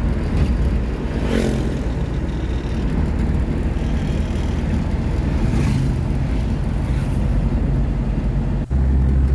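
Road noise inside a moving vehicle: a steady low engine and tyre rumble, with two brief whooshes about a second in and near the middle. Near the end it drops out for an instant and comes back as a steadier, louder low hum.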